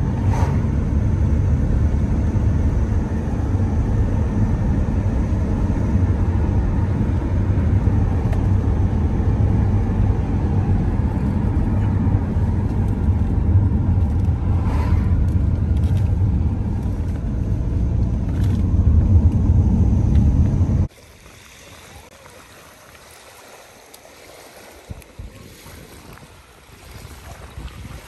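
Steady low rumble of road and engine noise inside a moving car's cabin. About 21 seconds in it cuts off abruptly to much quieter lakeshore sound of small waves lapping.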